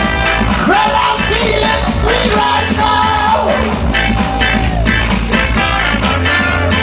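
Live band playing a ska- and dub-style song, with a steady beat, heavy bass and a vocal line that slides in pitch.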